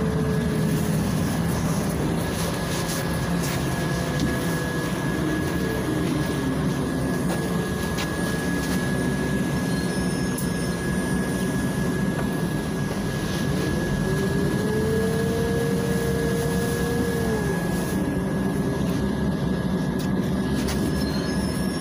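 Cabin noise inside a moving Volgabus 5270G2 city bus with a compressed-natural-gas Yuchai six-cylinder engine: a steady low rumble of engine and road. A drivetrain whine rises in pitch about halfway through as the bus pulls away, holds, and falls again a few seconds later, over a thin constant high tone.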